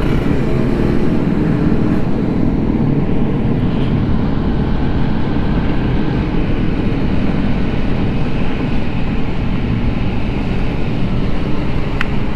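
Vespa Sprint S scooter cruising at steady speed: its engine running evenly under a constant low rush of wind and road noise over the microphone.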